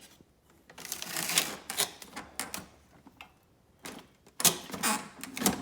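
Plastic ice bin being slid back into a Kenmore refrigerator's ice maker compartment: a series of plastic scrapes, clicks and knocks, with a louder knock about four and a half seconds in as it is pushed into place. A steady hum starts near the end.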